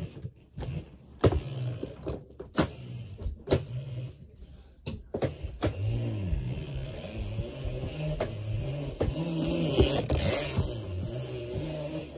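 A small bike being ridden, knocking and clattering as it goes. From about halfway a wavering low whir runs under the knocks.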